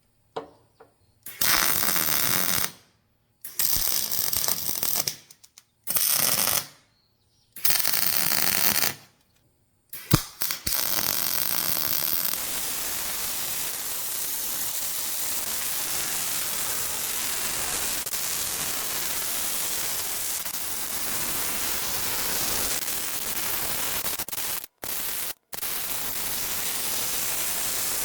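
Electric arc welding on steel plate: several short tack welds, each a second or two of crackling hiss, then a long continuous weld bead that stops briefly twice near the end.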